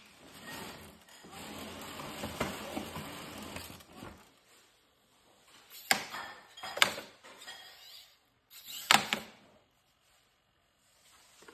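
Replica R2-series astromech droid's dome motor turning the dome, a steady whirring for about three and a half seconds. It is followed by three sharp clicks or knocks, spread over the next few seconds.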